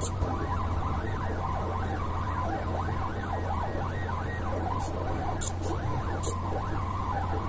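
The two NEMA 17 stepper motors of a belt-driven pen plotter whine as the pen traces curved letter outlines. Their pitch rises and falls quickly and irregularly, with a few sharp high ticks in the second half.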